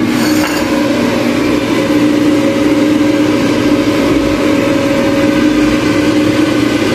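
Electric air fryer's fan running with a steady hum and a low steady tone, while its basket is pulled out and loaded, with a brief clatter of the basket at the start.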